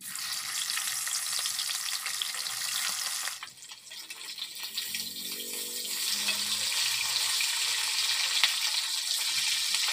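Fish pieces sizzling in hot oil in a steel wok, a steady hiss. It drops away briefly about three and a half seconds in, then returns a little stronger as the fish is turned with a spatula.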